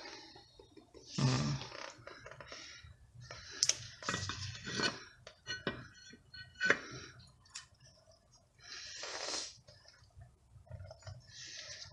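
Metal tools and car parts being handled: scattered clinks and knocks, with several brief scraping or rustling noises.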